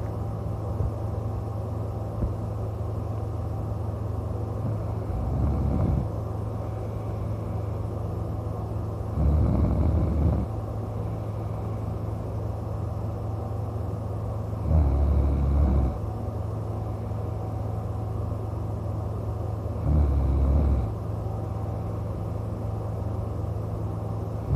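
A man snoring in deep sleep, kinda loudly: four snores about five seconds apart, each lasting about a second, over a steady low hum.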